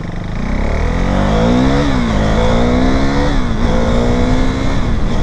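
KTM Duke 390's single-cylinder engine pulling through the gears: the pitch climbs, drops sharply with an upshift about two seconds in and again about three seconds in, then holds steady at cruising speed, with wind and road rush underneath.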